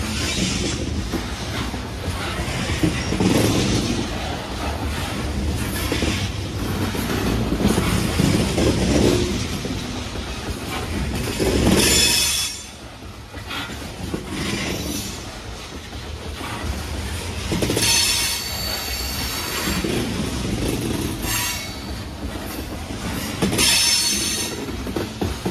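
Loaded coal train's freight cars rolling past close by: a steady rumble and clatter of steel wheels on rail. High-pitched wheel squeals break in briefly about halfway through and twice more later.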